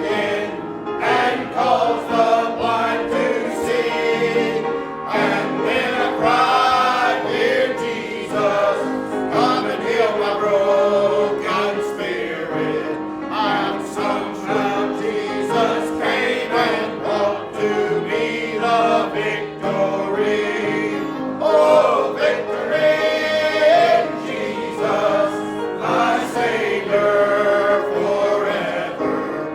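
Church congregation singing a hymn together, many voices in a choir-like blend.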